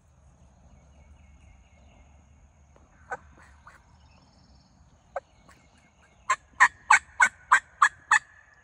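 Wild turkey calling: a few single sharp notes, then near the end a run of seven loud, evenly spaced notes, about three a second.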